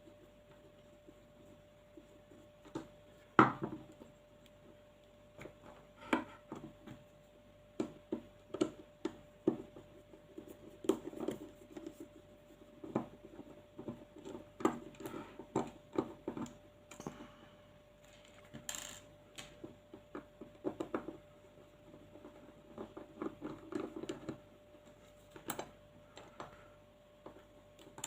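Small screws and a screwdriver clicking and scraping against an airsoft VSR10-type hop-up unit as it is unscrewed and taken apart by hand: irregular light taps and clicks, with one sharper knock a few seconds in. A faint steady hum runs underneath.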